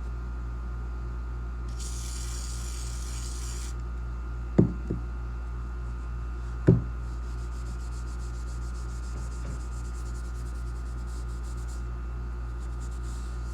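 4/0 steel wool rubbing up and down a steel shotgun barrel, a fast scratchy scrubbing that knocks down high rusty spots, over a steady low hum. A hiss lasting about two seconds comes near the start. Two sharp knocks follow a few seconds in, before the rubbing sets in.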